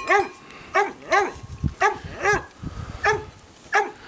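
Short animal calls repeated about every half second, eight or so in all, each one brief and rising then falling in pitch.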